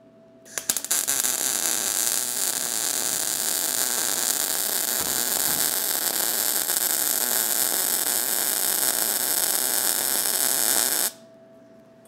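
Electric arc welding a repair bead on the broken steel frame of a 1985 Chevrolet K10 pickup: a steady crackling hiss. It starts with a few stuttering strikes about half a second in, runs for about ten seconds and cuts off sharply near the end.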